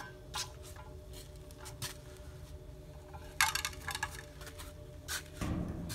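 A string of sharp clicks and clinks, with a quick flurry about three and a half seconds in and a dull thump near the end, from a metal frying pan being handled. Under them runs a faint steady hum.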